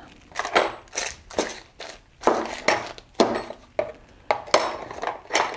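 Steel wrenches and small metal lathe tools clinking and clattering against each other and the plastic toolbox as they are handled and sorted: about a dozen sharp, uneven knocks with a short metallic ring.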